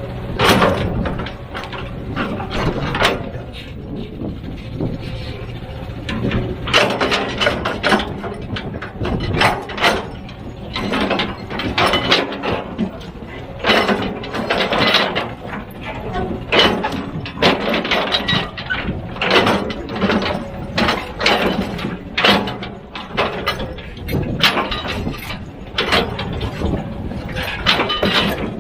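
Heavy machine working: a steady low engine rumble with many irregular sharp knocks and clanks over it.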